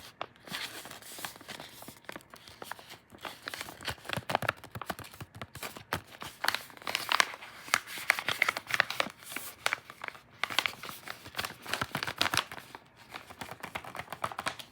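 Dense crinkling and rustling, a toy being squeezed and handled close to the microphone, with many quick crackles that grow busier and louder in the second half.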